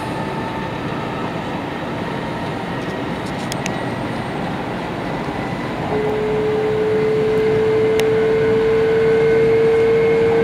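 Cabin running noise of an N700 series 8000 Kyushu Shinkansen train moving off after a station stop: a steady rumble and hiss, joined about six seconds in by a loud whine that climbs slowly in pitch as the train gathers speed. A few faint clicks come in the middle.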